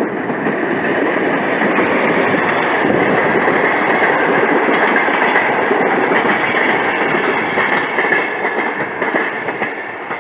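A train passing close by: steady rushing and rumbling of wheels on the rails, with rapid clicks of the wheels over the rail joints. It eases off slightly near the end.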